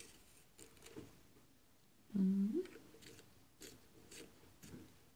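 A colored pencil being turned in a handheld pencil sharpener, its blade shaving the wood in short, regular scraping strokes about two a second. A brief low hum about two seconds in is the loudest sound.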